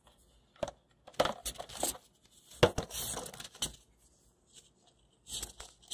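Pipe cleaners being wrapped and twisted around the neck of an inflated latex balloon: scratchy rustling and small clicks in three short bouts.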